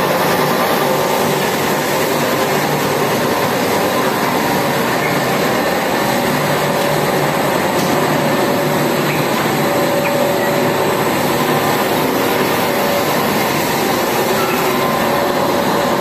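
Plastic-recycling machines, a crusher and an extrusion line, running together as one loud, steady mechanical din with a few faint steady hum tones.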